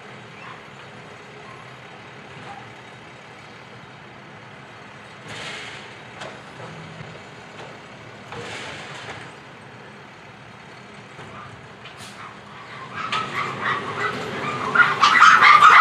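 Automated side-loader garbage truck working a polybin at a distance: a steady low engine background with two short hisses about five and eight seconds in as the arm lifts and tips the cart. From about thirteen seconds, dogs start barking close by, loud and rapid, drowning out the truck.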